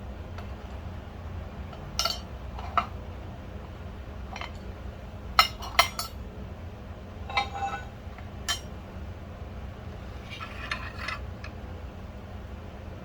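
Small metal parts and tools clinking and tapping as they are handled, a scattering of sharp separate clinks with a cluster of quicker ones near the end, over a steady low hum.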